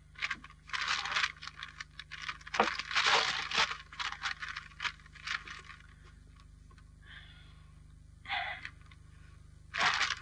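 A large newspaper rustling and crackling as its pages are leafed through and folded. The rustling comes in a run of bursts over the first five or six seconds, then in a couple of shorter rustles near the end, over a low steady hum.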